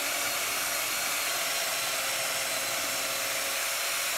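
Cordless drill spinning a polishing pad against a headlight lens, running at a steady speed.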